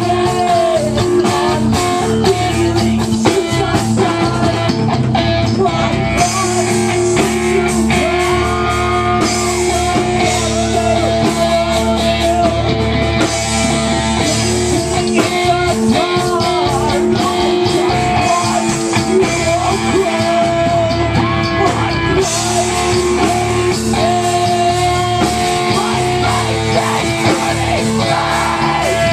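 Live rock band playing, with guitar to the fore and a melody line that may be sung.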